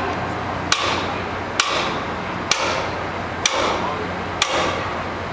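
Hammer striking a steel screw jack under a rail car, five sharp metallic blows about once a second, each ringing briefly, over a steady low hum.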